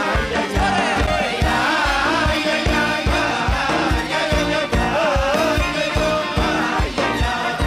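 Live band playing a Hasidic song, with male vocals sung into microphones over a steady drum beat.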